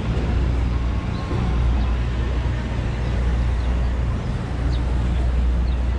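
City street traffic ambience: a steady low rumble of engines and passing vehicles.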